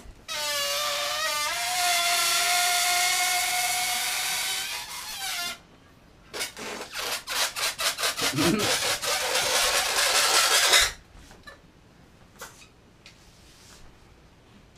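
Air let out of an inflated latex balloon through its stretched neck: a loud high squeal with a hiss lasting about five seconds, then after a short pause a fast fluttering rasp of air escaping that stops suddenly about eleven seconds in.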